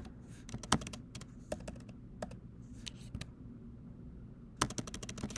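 Typing on a computer keyboard: scattered single keystrokes, then a quick run of keystrokes near the end.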